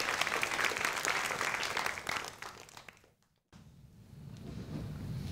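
Audience applauding, dying away over the first two seconds or so, then cut off. After a moment of silence a low steady hum rises.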